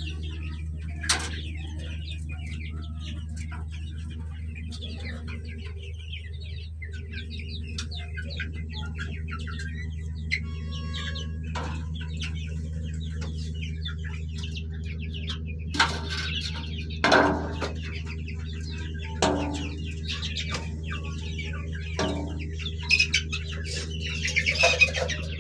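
Chickens clucking, with several louder calls in the last ten seconds, over a steady low hum.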